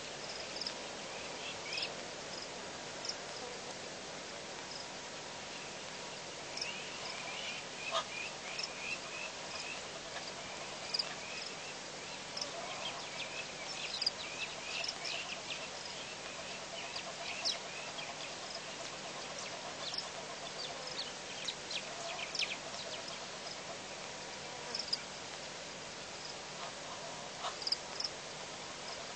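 Steady buzzing of insects, with many short high chirps and ticks scattered through it.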